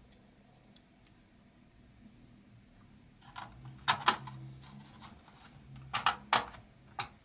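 Small screwdriver driving a screw into a Fujitsu Siemens Amilo Pro V3515 laptop's top case: a few faint clicks at first, then from about three seconds in a handful of sharp clicks and taps.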